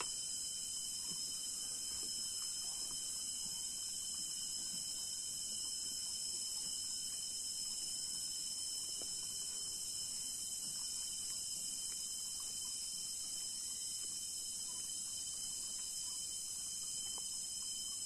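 Steady, high-pitched drone of a rainforest insect chorus, unbroken and even in level.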